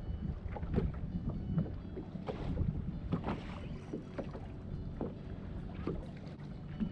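Fishing boat on the water: a steady low rumble of wind on the microphone and water against the hull, with irregular small knocks and splashes.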